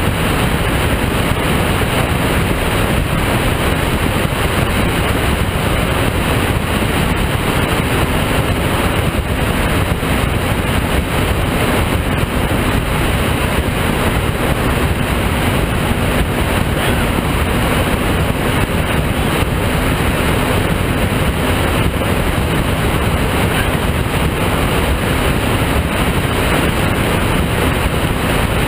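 Offshore performance powerboat running at speed: a loud, steady rush of wind across the deck-mounted microphone, water against the hull and engine noise, with no change in pace.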